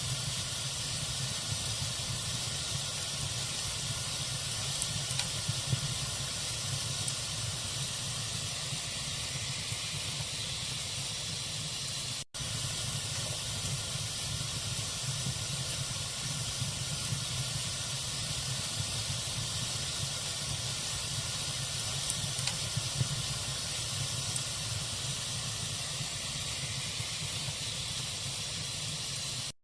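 Log fire burning in a fireplace: a steady hiss with scattered small crackles. The sound drops out for an instant about twelve seconds in.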